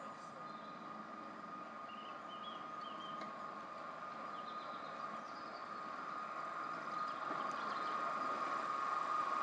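Class 73 electro-diesel locomotive running on its diesel engine as it approaches at low speed, with a steady high-pitched whine and low rumble growing louder as it draws near.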